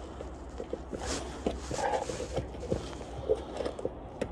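Hands handling a hard plastic Givi B45NM Atlas motorcycle top case, feeling at its lid and release latch to open it: scattered small clicks, taps and rubbing on the plastic.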